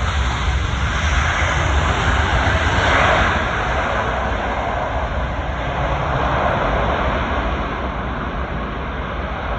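Jet airliner's engines passing on its landing, a loud rushing roar with low rumble that swells to its loudest about three seconds in and then slowly fades.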